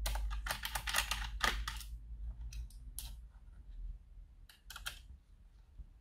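Small screwdriver backing out the screw that holds a laptop's hard drive in its bay: a quick run of light clicks and ticks for about two seconds, then a few scattered clicks.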